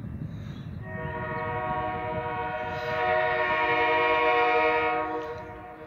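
Ontario Southland Railroad locomotive 1400's air horn sounding one long chord-like blast of about four seconds, growing louder partway through, over a low steady rumble.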